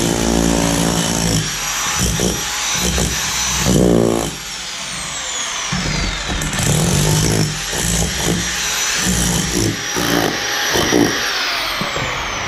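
Harbor Freight SDS rotary hammer with a chisel bit hammering into wooden floor framing and debris. It runs in bursts, with a quieter let-off from about four seconds in.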